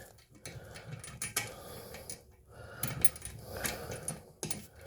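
Light, scattered metallic clicks and clinks of toilet tank bolts and metal washers being handled by feel while trying to start a bolt.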